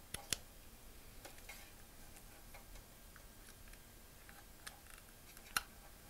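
Faint, irregular plastic clicks and taps of a SATA power cable connector being handled and pushed onto a Crucial 2.5-inch SSD. There are two sharp clicks at the start and one more near the end.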